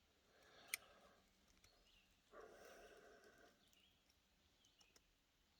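Near silence, broken by one sharp click a little under a second in and faint handling noise a couple of seconds later.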